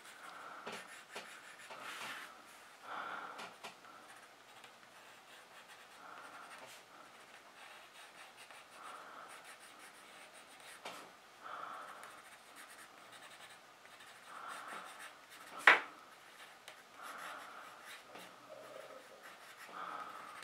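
Graphite pencil scratching faintly on paper in short shading strokes, a stroke every second or so, with one sharp click about three-quarters of the way through.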